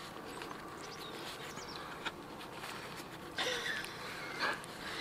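Quiet outdoor background with a few faint high chirps early on. Then two short, soft handling rustles, likely from a tortilla being folded, come in the last second and a half.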